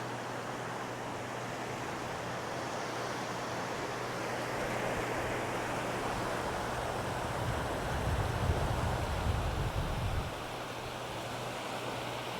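Small surf washing steadily onto a gently sloping sandy beach. About eight seconds in, a low rumble of wind on the microphone rises for a couple of seconds.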